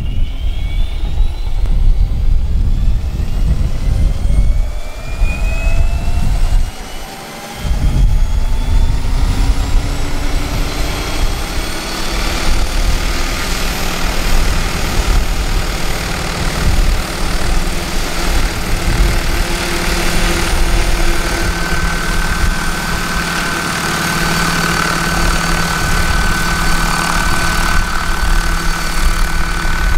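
Large-scale Vario Huey radio-controlled model helicopter spooling up on the ground, with a whine that rises steadily in pitch over about the first ten seconds as the rotors come up to speed. It then runs at a steady pitch with rotor noise and lifts into a low hover near the end.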